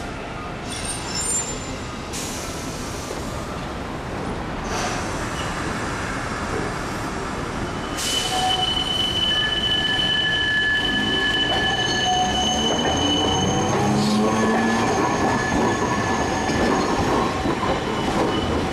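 Iyotetsu streetcar rolling through the terminal's track crossover, its wheels squealing on the curve. Steady high squeal tones start about eight seconds in and last several seconds, over the low rumble of the car passing close by.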